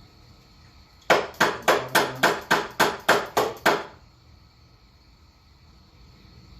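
A hammer striking about ten quick, evenly spaced blows, roughly three or four a second, for about three seconds.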